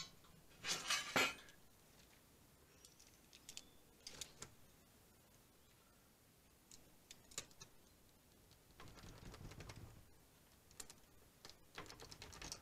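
Faint clicks and rattles of small parts handled at a workbench: plastic vinyl tubing and metal hardware. There is a louder cluster of clicks about a second in, scattered light ticks after it, a brief soft rubbing around nine seconds in, and a few more clicks near the end.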